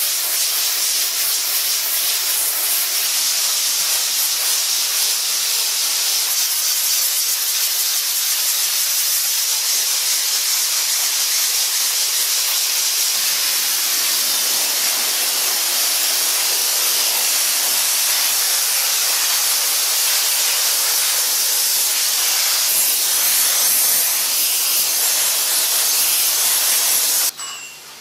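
High-pressure steam jetting from a steam cleaner's wand nozzle: a loud, steady hiss that cuts off suddenly near the end.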